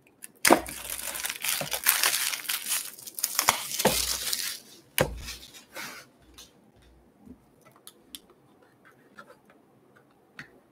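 Plastic shrink wrap crinkling as it is torn off a sealed cardboard card box, for about four and a half seconds, with two dull thumps of the box being handled on the table near the end of it. After that, quieter small scratches and ticks as a knife works along the box's seal.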